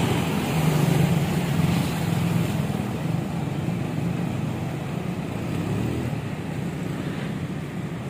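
Road traffic with a motor vehicle's engine running close by, a low hum that is strongest in the first couple of seconds and then gradually gets quieter.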